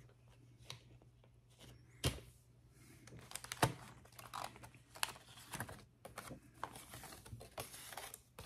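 Steel surgical instruments being handled and laid out: irregular sharp clicks and clinks with soft rustling of cloth, over a faint steady hum.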